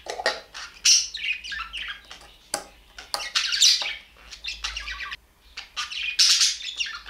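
Birds chirping and squawking in dense bursts, with scattered sharp clicks mixed in.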